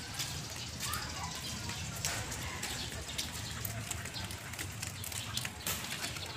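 Footsteps on a concrete street, heard as many short ticks over a steady low rumble, with a few faint bird chirps.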